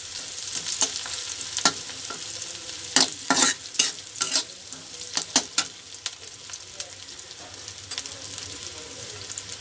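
Sliced onions, green chillies and bay leaves sizzling in hot mustard oil in a karahi, with a spatula scraping and knocking against the pan as they are stirred. The knocks come often in the first six seconds or so; after that it is mostly a steady sizzle.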